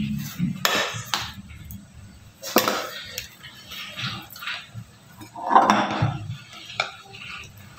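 Cake scraper and metal offset spatula scraping and knocking against a glass bowl as chocolate ganache is wiped off them: a few short scrapes and clicks, with a longer, louder scrape about six seconds in.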